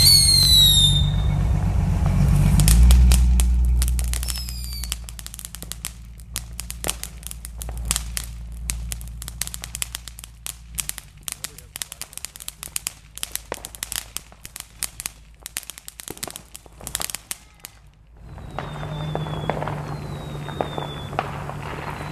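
Consumer fireworks: a short falling whistle at the start, then about fifteen seconds of rapid crackling pops from a ground firework shooting sparks, and a few faint falling whistles near the end.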